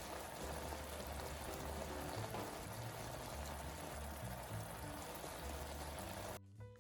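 Steady hiss of food cooking in a hot pan, with a low bass line of background music underneath; the hiss cuts off suddenly near the end.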